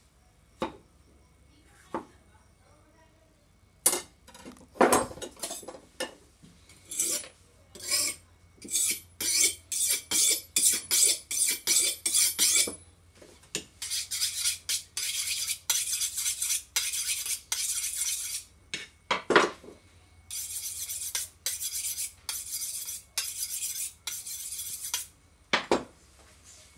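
Two knocks of a chef's knife cutting a lime on a wooden block, then the knife drawn again and again along a German-made steel sharpening rod: three long runs of quick metallic scraping strokes, a couple or more per second.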